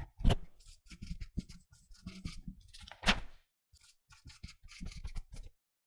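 Pen drawing on the paper of a spiral notebook: short, irregular scratching strokes, with two louder taps, one near the start and one about three seconds in.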